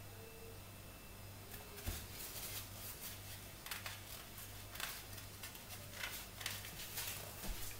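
Chopped onion frying in oil in a pot, faint sizzling that turns into scattered crackles and pops from about a second and a half in, with a low knock near the start of the crackling and a low hum underneath.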